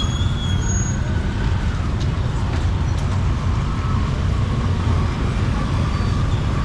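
Busy street ambience: a steady low rumble of road traffic, with faint voices in the background.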